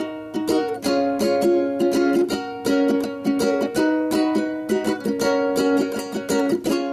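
Background music: a bright, quick-picked plucked-string tune, ukulele-like, with notes in a steady rhythm.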